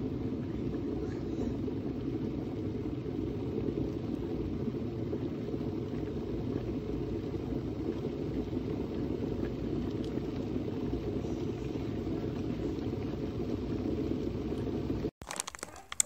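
Stainless steel electric kettle (Hamilton Beach 40880) heating water, a steady low rumbling noise that holds even until it cuts off abruptly near the end.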